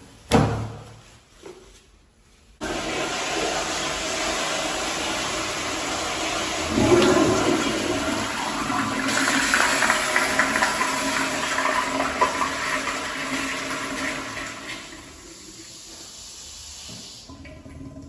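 Kohler Kingston 1.28-gallon wall-hung toilet flushing through a flushometer valve: a sharp knock just after the start, then a sudden loud rush of water about two and a half seconds in that swirls and gurgles down the bowl. It tails off into a quieter trickle and stops shortly before the end.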